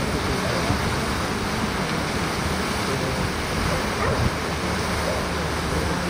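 Steady rushing outdoor noise: wind buffeting the microphone with a low rumble, over a constant wash like moving water.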